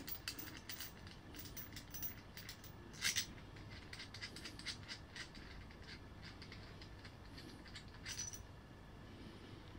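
Faint handling noises: a few light clicks and rustles as lawnmower parts are fitted together, the loudest click about three seconds in and another near eight seconds.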